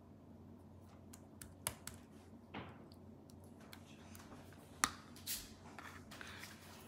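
Metal spoon spreading pizza sauce over dough on a metal pizza pan: quiet scraping with scattered light clicks and taps of the spoon, the sharpest just under five seconds in.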